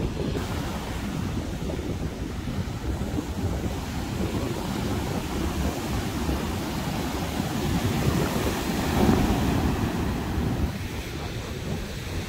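Ocean surf washing onto a beach, with wind buffeting the microphone; the surf swells louder for a moment near the end.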